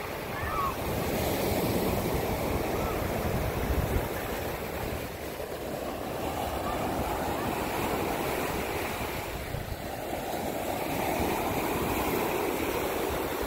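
Ocean surf breaking and washing up a sandy beach, a steady rushing that swells and eases every few seconds, with some wind on the microphone.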